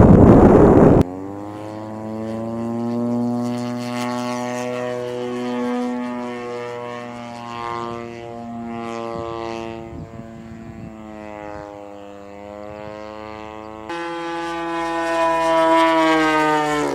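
About a second of loud rushing wind noise, then a radio-controlled aerobatic model airplane flying overhead. Its engine drones with a pitch that rises and falls gently as it manoeuvres, and it is louder for the last three seconds.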